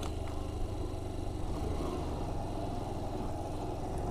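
Yamaha Factor 125 motorcycle's single-cylinder four-stroke engine running steadily while riding, heard from the rider's position.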